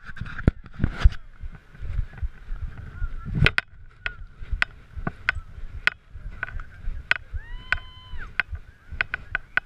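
Action camera being jostled: scattered clicks and knocks over a low rumble. About three-quarters of the way through comes a single honk-like call that rises and falls in pitch.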